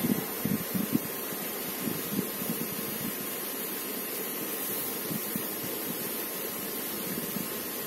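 Steady background hiss, with a few soft bumps in the first couple of seconds and one around the middle.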